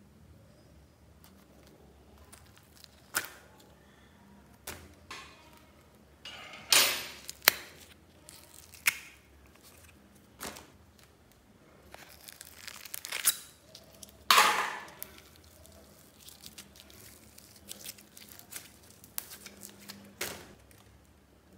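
Old slime being handled and thrown out: scooped from a plastic tub with a metal fork, pulled apart by hand and dropped onto a plastic-bag-lined basket, giving scattered clicks, sticky tearing and plastic crinkling. Two louder bursts stand out, one about a third of the way in and one about two-thirds in.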